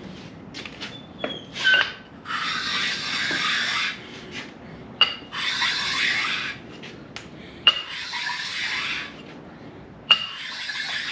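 Sharpening stone rubbed in long strokes across an engine block's deck surface to even out the finish and take off rust marks. There are four strokes, each about a second or more, with a sharp click as the stone is set down between strokes.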